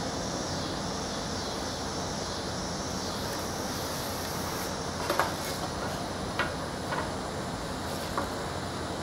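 A few light taps and clicks of a thin wooden straight edge and pencil being handled on a board, over a steady background hiss.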